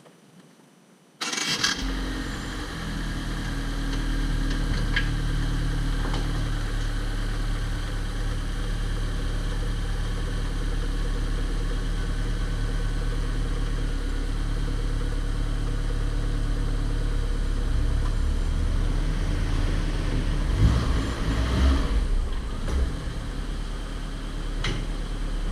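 A car engine idling steadily. It comes in abruptly about a second in, with a few louder knocks near the end.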